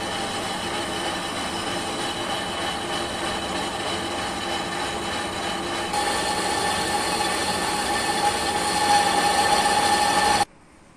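Metal lathe running with a pulley spinning in the chuck while a boring bar works in its bore: a steady machine whine made of several tones. It gets louder about six seconds in, a higher tone comes up near the end, and it cuts off abruptly.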